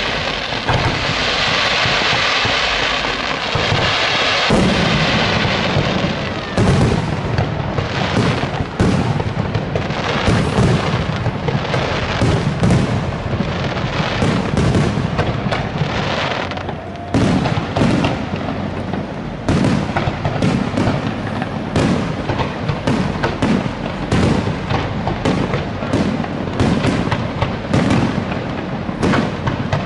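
Parente aerial fireworks display: a steady hiss for the first few seconds, then shells bursting in a rapid, dense series of sharp bangs.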